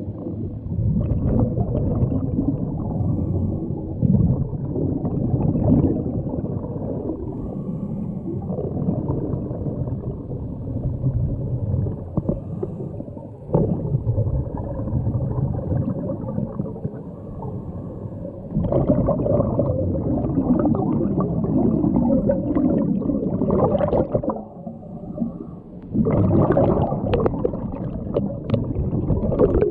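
Muffled underwater rumble and gurgle of a scuba diver breathing through a regulator, with two longer, louder bubbling surges in the second half.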